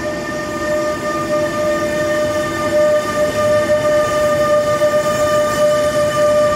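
Intermodal container freight train hauled by an electric locomotive passing close by, its wagons rolling past with a rumble. A steady high-pitched tone with overtones is held throughout, and a lower tone stops about three seconds in.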